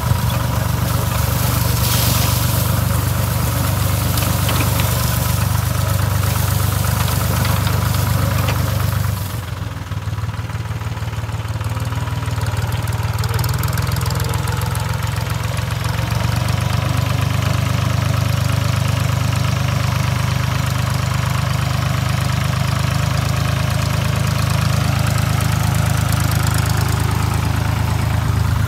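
Massey Ferguson 3060 tractor's diesel engine running steadily while driving a rotovator, with a hiss from the tines churning soil over the engine drone. About nine seconds in the hiss drops away and the level dips, building back up a few seconds later.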